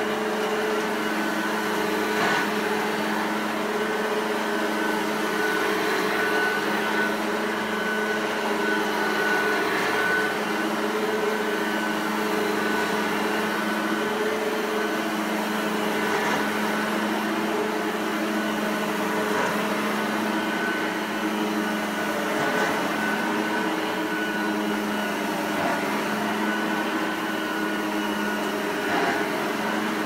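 Hoover Junior U1104 upright vacuum cleaner running continuously: a steady motor hum with a thin high whine above it.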